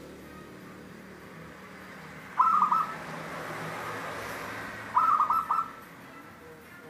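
Caged zebra dove (perkutut) cooing: two short phrases of quick, ringing coos about two and a half seconds apart, the second a little longer. The voice is the clear, carrying kind that keepers call 'kristal tembus'.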